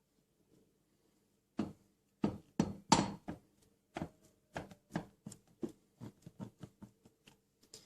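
Hands pressing a strip of dough around the rim of an upturned metal pot lid, giving a run of irregular soft knocks and taps against the pot, loudest in the first few seconds and fading toward the end.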